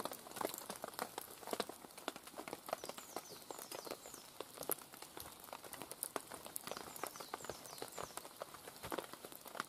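Footsteps on a wet woodland path of leaf litter, coming closer, over constant irregular tapping of rain drips.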